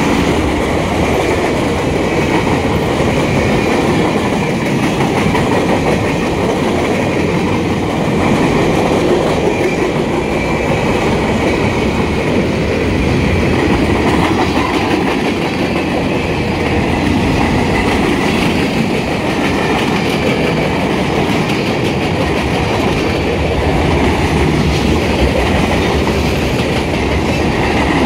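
Freight train cars rolling past close by: a steady rumble with the wheels clicking over the rail joints.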